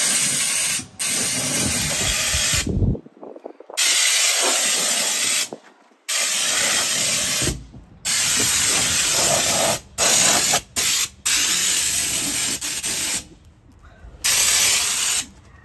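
Low-pressure compressed-air undercoating gun hissing as it sprays a thin, grease-like rodent-repellent coating. The hiss comes in repeated bursts of one to two seconds, starting and stopping sharply as the trigger is pulled and released.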